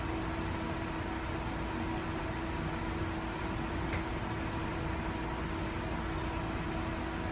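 Steady household appliance hum with one constant low tone, and a couple of faint clicks about four seconds in.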